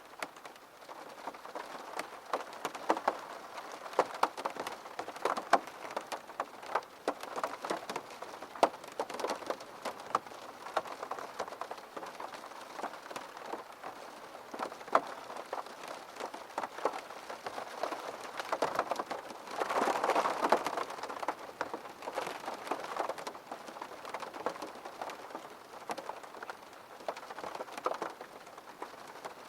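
Steady rain falling on a surface, with many separate drops ticking sharply. About two-thirds of the way through, it swells louder for a second or two.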